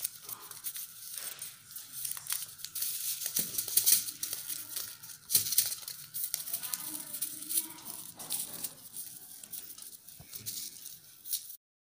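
Small paper seed envelope rustling and crinkling as it is handled and opened, with a few light knocks. The sound cuts off suddenly near the end.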